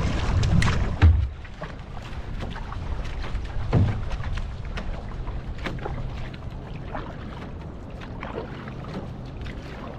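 Water splashing and sloshing around a paddled va'a (outrigger canoe), with irregular short splashes of the paddle strokes and a louder one about four seconds in. A low rumble of wind on the microphone drops away after the first second.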